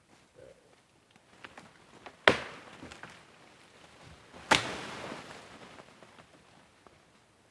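Two sharp, loud impacts about two seconds apart, each dying away over about half a second, with lighter knocks and clatter between them.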